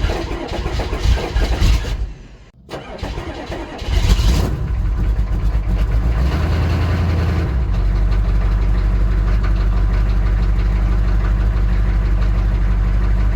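GM 6.2 diesel V8 in a 1985 Chevrolet K5 Blazer starting up, then settling into a steady idle from about eight seconds in. There is a brief drop about two seconds in.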